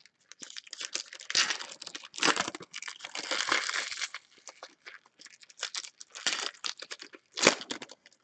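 Foil baseball card pack wrappers being torn open and crinkled in a string of crackling bursts, with a single sharp tap about seven and a half seconds in.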